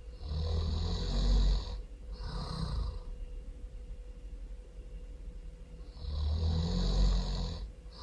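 A person snoring loudly: a long, low snore followed by a shorter, breathy breath, with the cycle coming round again about six seconds later.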